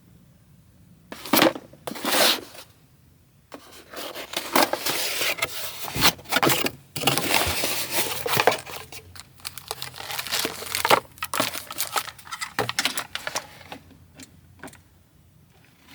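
Packaging being torn open and handled while a portable fridge is unboxed. Two short rips come first, then a long stretch of rustling, crinkling and scraping with sharp clicks.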